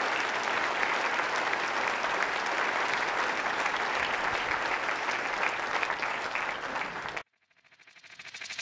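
Audience applauding steadily for about seven seconds, then cut off abruptly. Near the end a rising, pulsing whoosh sound effect from a TV station logo sting begins and grows louder.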